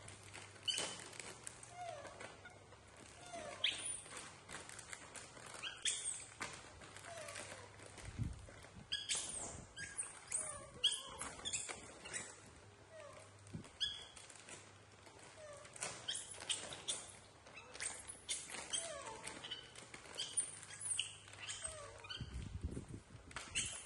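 Foil snack bags crinkling and rustling as they are handled and opened, over and over, with young macaques giving short high squeaks and chirps.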